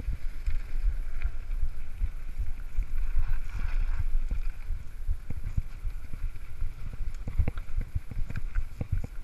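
Mountain bike riding a dirt trail: wind rumbling on the camera microphone with tyre noise, and sharp knocks and rattles from the bike jolting over rough ground. The rattles come thicker over the last couple of seconds, as the trail turns stony.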